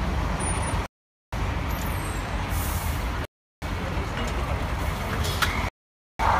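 Low, steady rumble of idling police trucks and street traffic, cut out completely three times for a split second. Just before the end a police car's siren starts with a falling wail.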